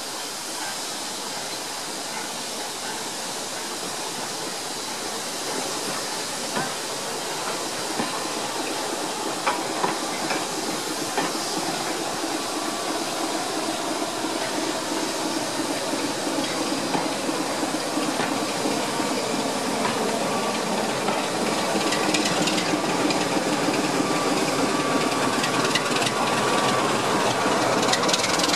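Steam tank locomotive pulling away with a train of coaches, steam hissing, while the coaches roll past with wheels clicking over the rail joints. The sound grows louder toward the end.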